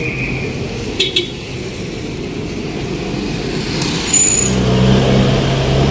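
Street traffic noise, with a motor vehicle's engine running close by and getting louder about four seconds in. A couple of sharp clicks sound about a second in.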